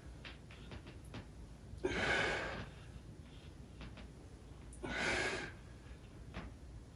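A man breathing out hard with the effort of dumbbell raises: two loud, rushing breaths about three seconds apart, with quieter breathing between.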